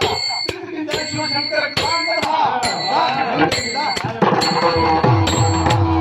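Pakhawaj drumming in a kirtan rhythm, with regular strokes. About four seconds in, the drum's deep bass head booms with its pitch sliding downward, over steady held tones.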